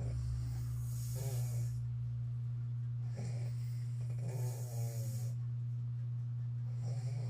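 A person snoring in a repeating cycle about every three and a half seconds: a short rattling snort, then a longer rattling breath with a hiss.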